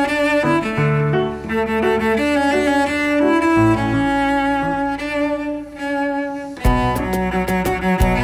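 Background music with sustained pitched notes; about a second and a half before the end, a steady percussive beat comes in.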